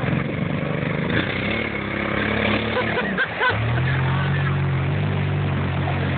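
Side-by-side utility vehicle's engine running under load as it drives through mud, dipping briefly a little after three seconds and then pulling again with a stronger, steady note. Riders' voices call out briefly in the middle.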